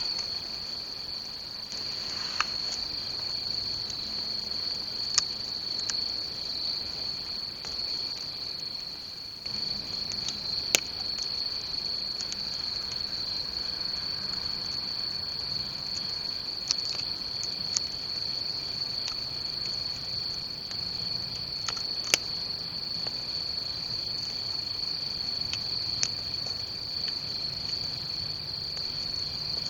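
Crickets chirring steadily in one continuous high-pitched trill, with a few sharp isolated pops from a burning wood bonfire.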